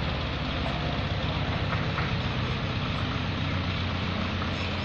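Large engine running steadily at low speed, a constant low rumble with no change in pitch.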